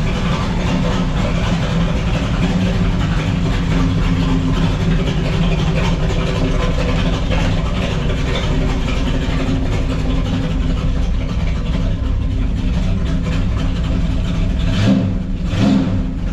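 1970 Dodge Challenger's 440 Six Pack big-block V8, fed by three two-barrel carburettors, idling steadily as it warms up after a cold start at 39 degrees. A few brief louder surges come near the end.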